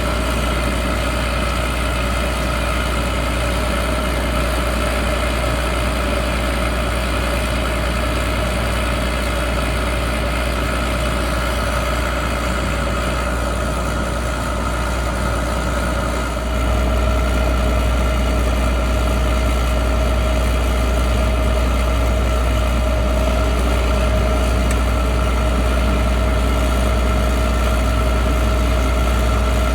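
John Deere 9760 STS combine's diesel engine running steadily at idle with a constant hum, growing somewhat louder a little past halfway through.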